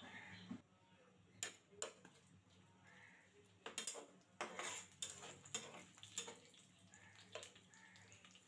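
Faint, irregular clicks and scrapes of a steel spatula stirring sliced onions against a karahi.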